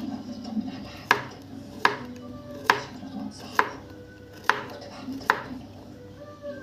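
Kitchen knife chopping a zucchini into thick rounds on a wooden cutting board: six sharp knocks, a little under one a second.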